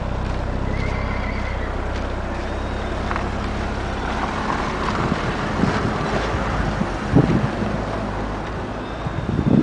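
A vehicle engine idling with a steady low hum that fades about four seconds in, followed by irregular low rumbling gusts.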